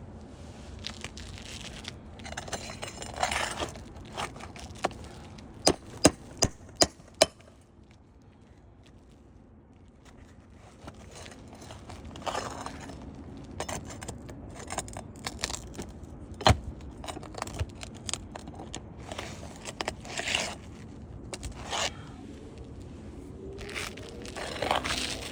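Hand tools scraping and prying at roof shingles, in repeated scraping passes. A quick run of about five sharp knocks comes about six seconds in, and a single sharp knock falls near the middle.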